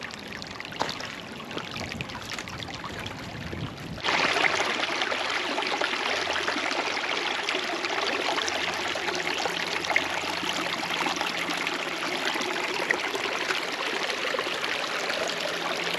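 Creek flowing: a steady rush of running water, which becomes abruptly louder about four seconds in.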